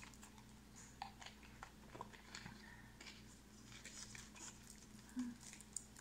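Near silence: room tone with a few faint, scattered clicks and taps from small handling movements at a table.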